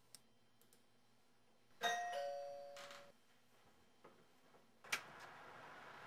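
Two-tone ding-dong doorbell chime, a higher note followed by a lower one, ringing out for about a second. A sharp click follows a few seconds later.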